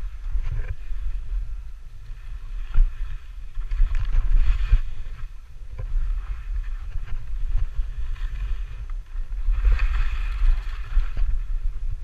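Wind buffeting the microphone during a ski run, a steady low rumble, with two swells of hiss from skis on snow, about four and about ten seconds in.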